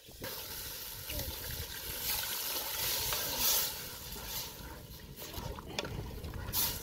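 A metal spoon stirring a thick, wet batter in a large aluminium pot: wet slopping of the mixture, with scattered clicks of the spoon against the pot.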